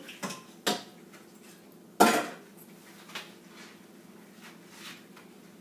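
A few sharp clinks and knocks of small objects against a dish on the table. The loudest comes about two seconds in and rings briefly, followed by fainter taps.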